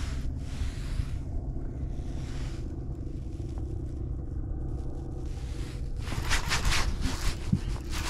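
Steady wind rumble on the microphone, then about six seconds in a rough burst of scraping and clicking as a rod is snatched up and the fishing reel cranked to set the hook on a biting fish.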